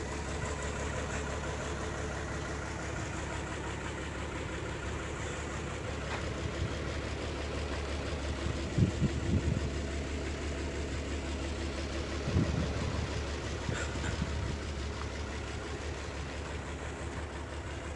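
Engine idling steadily, with a few brief low thumps about halfway through.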